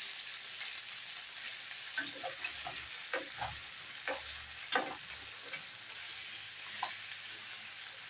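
Beef strips sizzling steadily in a frying pan, with a metal spoon scraping and knocking against the pan now and then as the meat is stirred; the sharpest knock comes a little before the middle.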